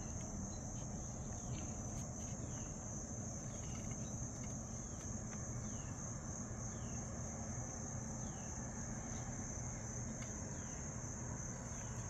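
Insects trilling steadily in a high pitch, with short falling chirps repeating about once a second over a low background rumble.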